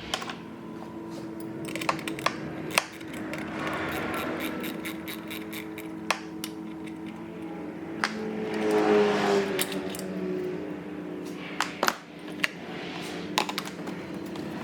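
Scattered sharp metallic clinks and taps of hand tools and engine parts being handled while working on a jet ski engine, over a steady low hum.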